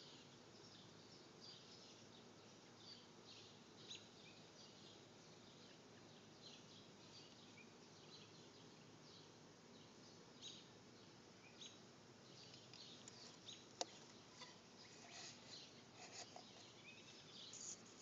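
Faint, scattered high chirps of bluebird nestlings in a wooden nest box, over a quiet outdoor hiss, growing a little busier near the end. A single sharp click about fourteen seconds in is the loudest sound.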